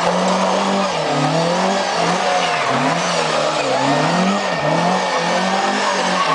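Ford Escort Mk2 rally car's engine revving up and down over and over as the car spins doughnuts.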